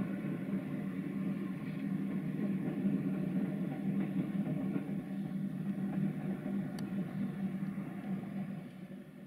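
060-EA (LE 5100 kW) electric locomotive running light without a train, heard from a distance as a steady hum with running noise, fading away near the end.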